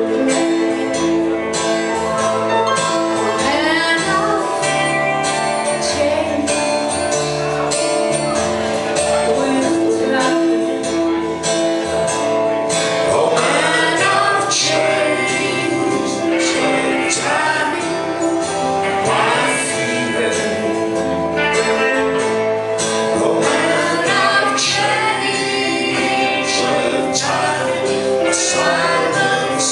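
Live folk band playing a song, with tambourine and voices singing.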